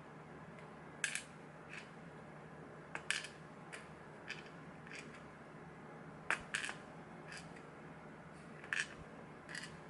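Light, scattered metallic clicks and taps of small lock parts being handled: pins and tools clicking as a picked pin-tumbler lock is taken apart, about a dozen clicks at irregular intervals.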